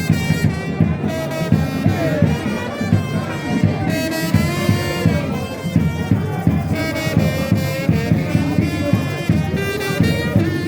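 Music with a melody on horns over a steady, busy beat.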